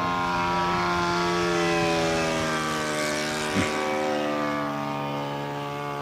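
Radio-controlled model airplane's engine and propeller running steadily in flight, with its pitch falling slightly in the second half as it passes. A brief sharp knock a little past halfway is the loudest moment.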